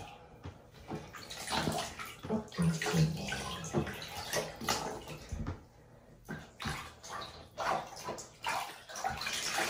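Water sloshing and splashing in a small plastic tub as hands wash a tabby cat standing in it, in uneven splashes with a brief lull about halfway through.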